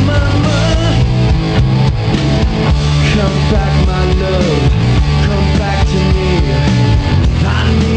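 Punk rock band playing live: loud electric guitar and drums with a singer's voice over them, steady and dense throughout.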